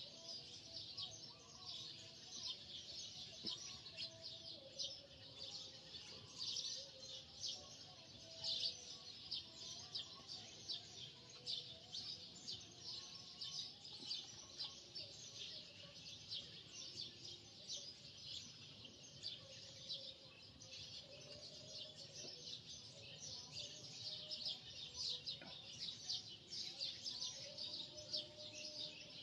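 Small birds chirping and twittering continuously, a dense stream of short calls.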